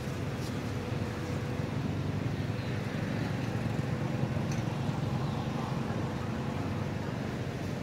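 Steady low rumbling outdoor background noise, even throughout, with a faint steady tone in the first couple of seconds.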